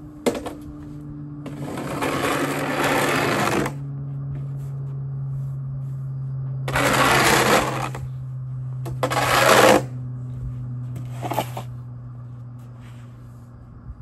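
Plastic snow shovel scraping across packed snow and ice on pavement: a sharp knock at the start, then several scraping strokes, the longest about two seconds. A steady low hum runs underneath.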